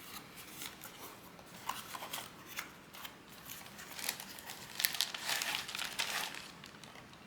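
Packaging of a CPU cooler's accessories kit being handled and opened: intermittent crinkling and rustling with small clicks, busier in the second half.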